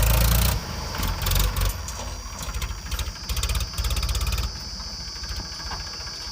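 Heavy diesel engine running, with several loud surges over the first four and a half seconds, then settling to a steadier, quieter run.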